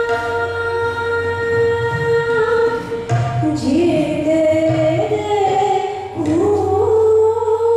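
Woman singing Hindustani classical vocal in Raag Bhairav over a steady pitched drone. Her voice glides between held notes and is strongest from about three seconds in.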